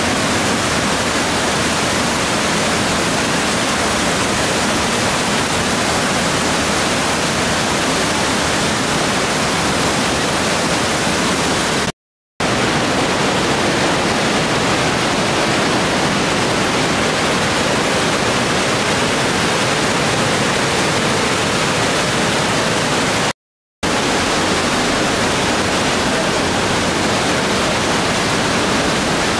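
Trümmelbach Falls, a waterfall plunging through a rock cave, making a loud, steady rush of falling water. The sound cuts out abruptly for a split second twice, about 12 and 23 seconds in.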